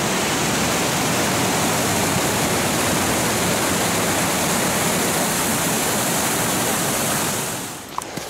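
Whitewater of a mountain stream running high, rushing and cascading over boulders in a steady, loud rush that cuts off near the end.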